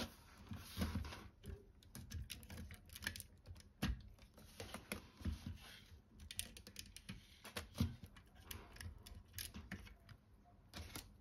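LEGO plastic bricks and plates clicking and tapping as hands handle the model, pressing parts on and pulling them off, with many small irregular clicks throughout.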